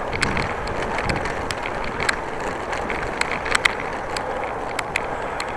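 Bicycle being ridden: a steady rush of tyre and wind noise with frequent small, irregular clicks and rattles.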